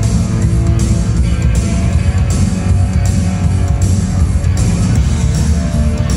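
Loud music with a heavy bass beat and guitar, played over a party sound system, with a cymbal-like hiss that comes and goes in a steady pattern.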